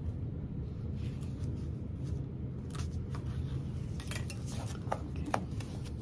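Small sharp scissors snipping through layers of fabric, a scattering of short crisp clicks at irregular intervals, over a steady low hum.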